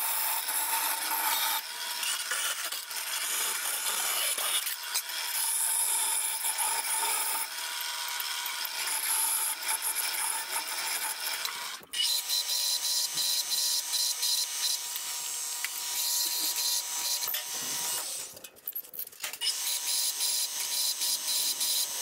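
A vertical bandsaw cutting a circle out of thin aluminium sheet, a dense scraping rasp; about halfway through it gives way to a belt sander running with a steady whine while the edge of the aluminium disc is ground on the belt, the grinding dropping out briefly near the end.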